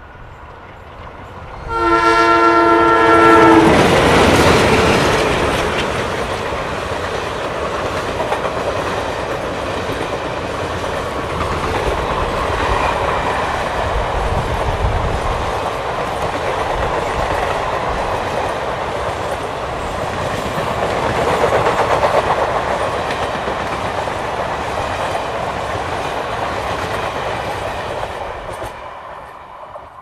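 Twin ALCo WDM-2 diesel locomotives sound their horn in one chord-like blast of under two seconds as they pass at speed, then their engines go by loudest. The coaches follow with a steady rumble and clickety-clack of wheels on rail joints, fading near the end as the train moves away.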